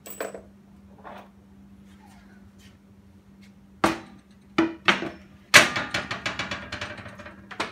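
Wooden top board of a bolted guitar clamping fixture being lifted off its threaded rods and set down: a few sharp wooden knocks, then a loud knock followed by a quick rattling clatter that dies away over about two seconds.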